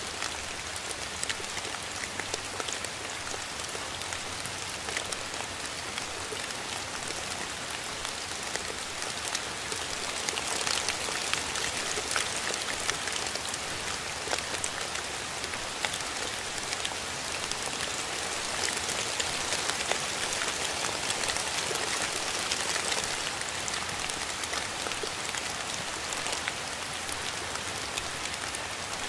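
Steady rain falling, with many separate drops ticking through the constant hiss; it grows a little heavier through the middle.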